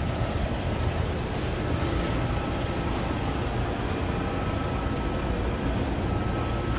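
Scania R450's 13-litre inline-six diesel idling, a steady low rumble.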